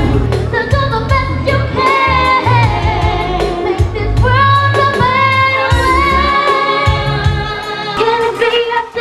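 A young girl singing live over a pop backing track, holding long notes and sliding through runs, with a bass line underneath.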